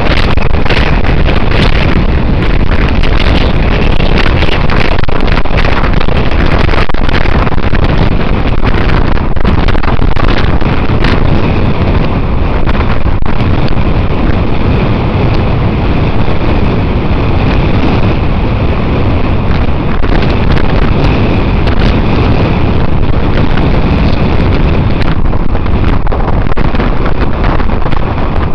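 Wind buffeting the microphone of a camera on a road bicycle riding fast, a loud steady rush with a heavy low rumble.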